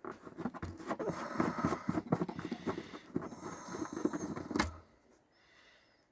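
Plastic fuel cap being unscrewed on a Coleman Powermate portable generator: a run of small scraping clicks as it turns, ending in one louder click a little before the end as it comes off.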